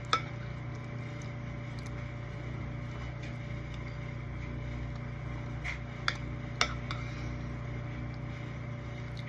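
Metal spoon clinking and scraping against a ceramic bowl of scrambled eggs: one sharp clink just after the start and two more about six seconds in, with fainter scrapes between. Under it runs a steady low electrical hum.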